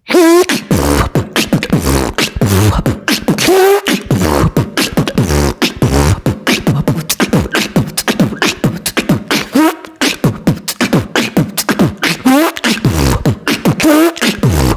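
Beatboxing routine imitating a zipper by mouth: a fast, continuous run of sharp clicks and rasps over deep bass kicks, with short squeaky rising glides now and then.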